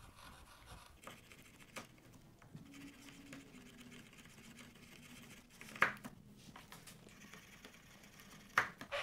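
Chisel pushed by hand and wiggled side to side in a wooden apron's curved edge, taking small shearing cuts: faint scraping of the steel in the wood. Two brief louder sounds stand out, one about six seconds in and one near the end.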